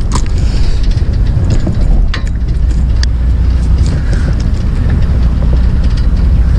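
Wind rumbling on the microphone over the steady low drone of a fishing boat's engine, with a few light clicks.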